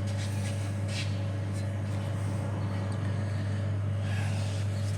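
Steady low machine hum with a constant pitch, with a couple of faint light clicks from brake parts being handled about a second in.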